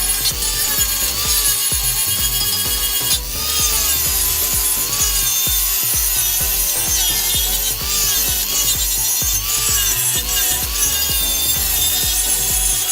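A power tool running continuously under load on metal, over background music.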